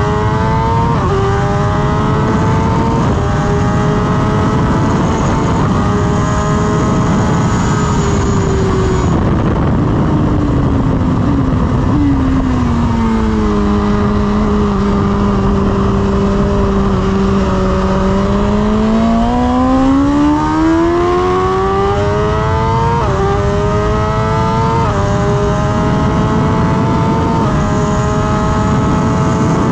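BMW S1000RR inline-four engine at full throttle on track, its note climbing and dropping a step at each quick upshift. It falls as the bike is shifted down for a slow corner, holds a low steady note through the bend, then climbs again through several more upshifts, with wind rush throughout.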